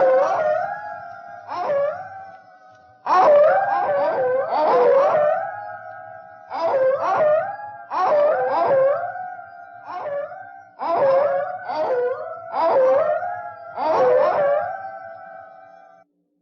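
Canines howling in an overlapping chorus, each howl starting with a wavering pitch and then holding a steady note. The howls come in clusters with short pauses and stop just before the end.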